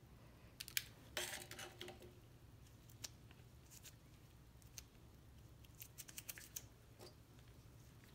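Faint scattered clicks and a short rustle about a second in, from the plastic parts of a chainsaw's recoil starter (the pulley and its housing) being handled while the new cord is threaded.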